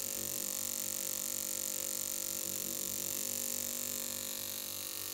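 Induction coil in operation, its interrupter buzzing steadily as the spark discharge jumps between its two terminals. The buzz carries a high whine.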